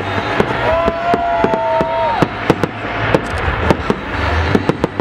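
Fireworks going off in rapid succession: many sharp bangs and crackles at irregular intervals over a low rumble, with a few long whistling tones that bend in pitch in the first half.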